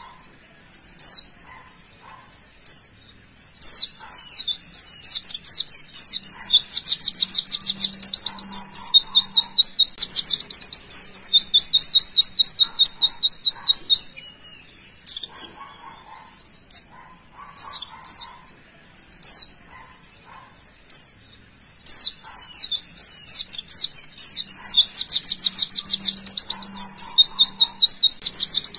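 A pleci (white-eye) singing its 'tembakan': scattered sharp, high chirps build into a long, very fast trill of rapid repeated notes lasting several seconds. The trill breaks off about halfway through, the chirps resume, and the fast trill starts again near the end.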